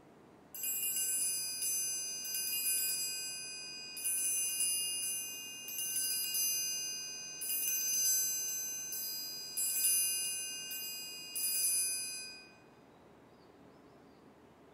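A small hand-held metal percussion instrument struck about a dozen times in an uneven rhythm, each stroke ringing on at the same cluster of high pitches. It is damped suddenly near the end.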